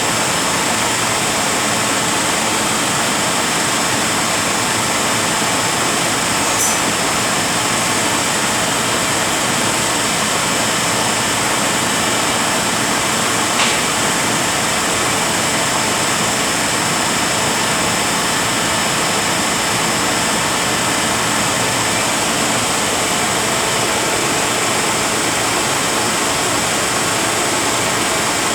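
Rebuilt Eaton Fuller RTLO-18913A 13-speed truck transmission running steadily on a test dyno, a constant loud mechanical gear-and-drive noise.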